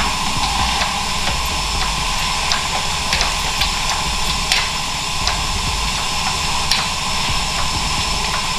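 Steady mechanical running noise with a constant mid-pitched whine, broken by a handful of sharp metal clicks, as a Subaru flat-four engine hanging on hoist chains is lifted out of the engine bay.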